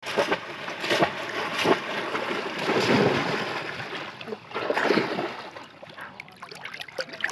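Repeated splashing of shallow muddy water as bamboo polo basket traps are plunged down into it and waded around, in uneven surges that are heaviest around three seconds in and ease off near the end.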